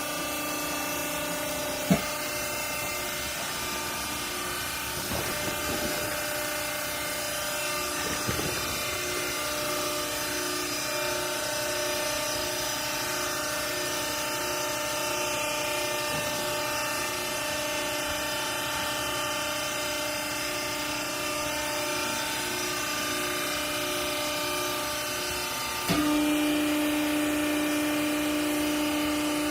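Hydraulic clothes baler's motor and pump running steadily, a whine of several steady tones over a hiss. A sharp click about two seconds in; near the end another click, after which the whine grows louder.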